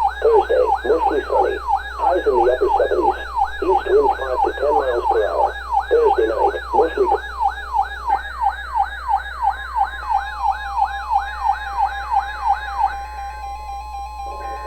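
A weather alert radio's siren alarm, an electronic sweep repeating about three times a second, set off by a NOAA Weather Radio Required Weekly Test. A voice from the broadcast runs under it for the first half, and steady electronic tones come in about halfway. The sweep stops near the end, leaving the steady tones.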